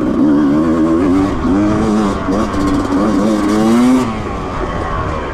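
Honda CRE 250's two-stroke single-cylinder engine revving up and down under load as the dirt bike is ridden, its pitch rising and falling with the throttle. It is loudest just before four seconds in, then eases off to a lower, steadier note.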